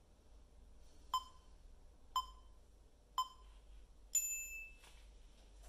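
Interval timer countdown: three short beeps a second apart, then a longer, higher-pitched beep marking the end of the timed stretch.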